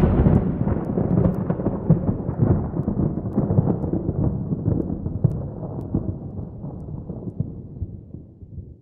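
Thunder sound effect: a long rolling rumble with crackle in it, slowly dying away over about eight seconds, the higher part fading first until only a low rumble is left near the end.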